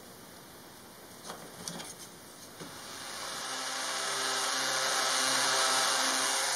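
A few light clicks and knocks of small wood pieces being handled, then a random orbit sander running on wood, its steady hum and hiss growing louder from about three seconds in.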